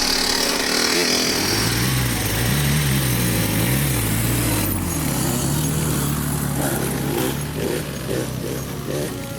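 Small two-stroke dirt-bike engine running: revved up and down a few times, then held at a steady speed.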